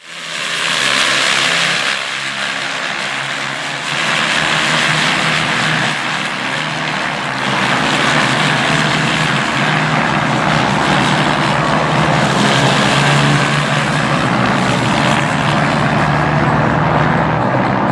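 Engines of a field of KTM racing motorcycles passing at racing speed, the noise swelling and easing in waves as groups of bikes go by.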